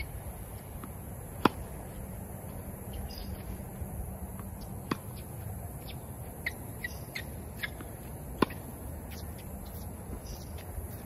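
Outdoor ambience with faint bird chirps and three sharp pops about three and a half seconds apart.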